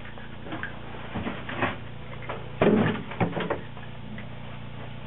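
Wet gill net rustling and clicking as fish are picked out of it by hand, over a steady low mechanical hum. A loud thump comes about two and a half seconds in.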